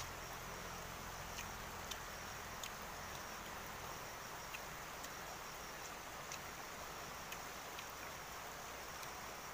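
Faint steady outdoor forest background with insects, and scattered light clicks throughout.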